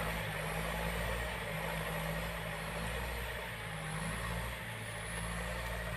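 Small Yanmar 514T tractor's diesel engine running steadily as it plows soft, wet soil. The engine note holds even and fades a little in the middle.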